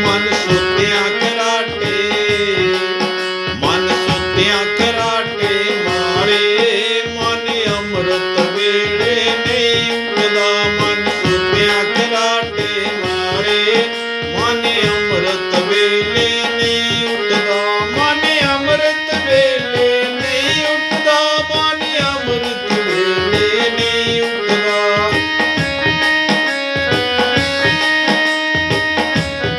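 Devotional bhajan music: tabla drumming under a stepping melody line of held notes.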